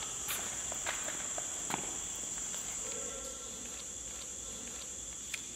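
Steady high-pitched chirring of crickets, with a few footsteps on a concrete floor in the first two seconds and one more near the end.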